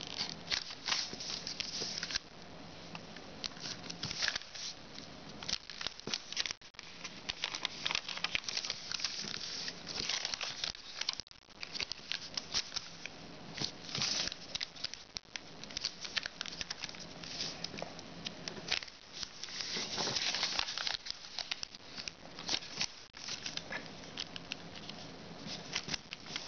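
A sheet of origami paper being folded and creased by hand into a fan of pleats: a continuous run of crinkling rustles and quick scraping strokes as fingers press each crease flat.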